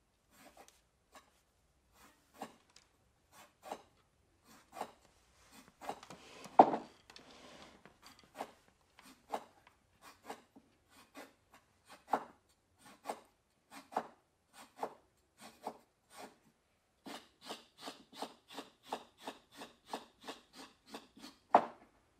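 A dancer's body brushing and rubbing against the floor in short strokes, about one a second, with a longer scrape about six seconds in. Near the end the strokes quicken to about two a second over a faint steady hiss, and one sharper stroke there is the loudest.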